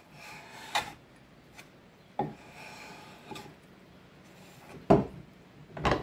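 Wood being worked by hand: short rubbing or scraping strokes on wood, broken by four sharp knocks of wood on a hard surface, the loudest about five seconds in.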